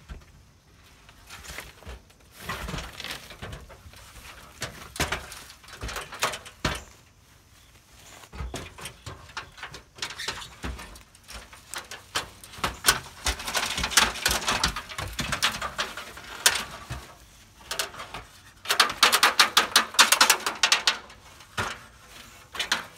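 Aluminium step ladder clattering, knocking and scraping as it is handled and pulled out through a trailer doorway, with rustling between the knocks. A run of rapid metallic rattling comes near the end.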